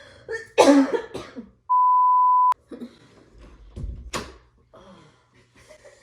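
A harsh cough about half a second in, then a steady single-pitch censor bleep lasting under a second that cuts off abruptly. Quieter muffled vocal sounds follow, with another short sharp burst a little past the four-second mark.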